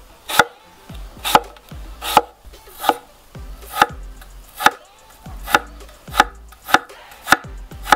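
Chef's knife slicing a crisp green apple into matchsticks on a wooden cutting board: about ten strokes, each a short crunch ending in a knock of the blade on the board, a little more than one a second and slightly quicker near the end.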